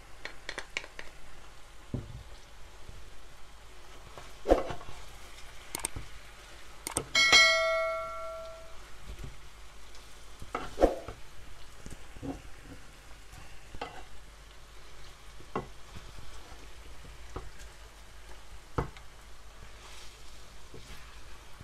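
Chicken pieces sizzling as they fry in oil in a pan, with a spoon stirring them and knocking against the pan every so often. A short metallic ring sounds about seven seconds in.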